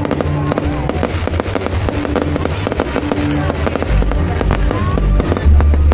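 Fireworks crackling and popping in a dense, rapid stream, growing louder and deeper toward the end, with music playing underneath.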